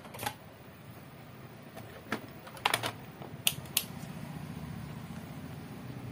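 A handful of sharp clicks and taps as multimeter test probes are handled and set against a CRT TV circuit board, then a low steady hum sets in about two-thirds of the way through as the TV is powered back on.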